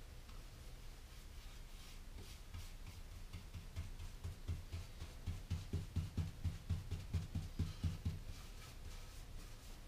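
A paintbrush stroking exterior latex paint back and forth over a wooden beehive box, about three strokes a second. Each stroke brings a dull thump as the box knocks against the table. The strokes start about two seconds in, are strongest in the middle and fade near the end.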